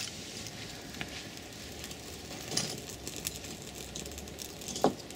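Small freshly lit fire of split kindling and birch bark crackling softly, with scattered ticks and a couple of louder pops, over a steady hiss of light rain.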